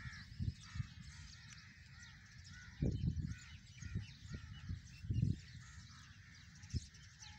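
Birds calling and chattering in the trees, with a few short, low muffled bumps scattered through, the loudest about three and five seconds in.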